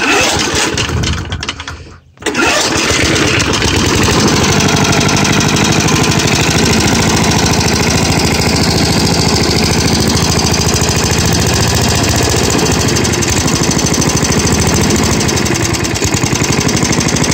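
1981 Roper push mower's vertical-shaft Briggs and Stratton engine being pull-started with its recoil starter. It catches about two seconds in and then runs steadily, a little louder near the end. It is running again now that its dirty ignition points have been cleaned.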